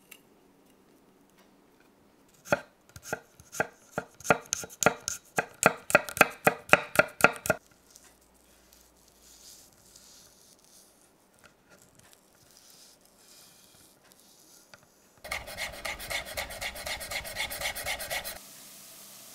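Chef's knife cutting garlic cloves on a wooden cutting board: a series of sharp separate knife strikes starting about two and a half seconds in and going on for about five seconds, then a few faint cuts, then rapid, even mincing strokes for about three seconds near the end.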